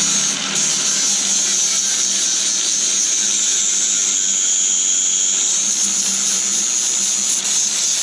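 Angle grinder with a flap disc running steadily under load, grinding weld spatter off steel.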